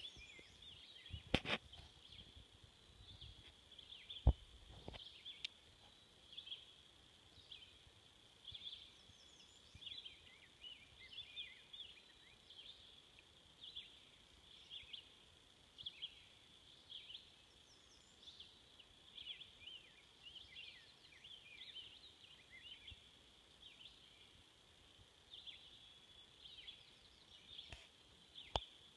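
Faint birdsong: short high chirps recurring about every second over a steady high hum, with a few sharp knocks in the first five seconds.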